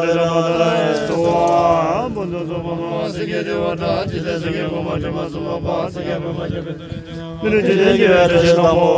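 Group of men chanting a Buddhist prayer together in a steady recitation, growing louder again about seven and a half seconds in.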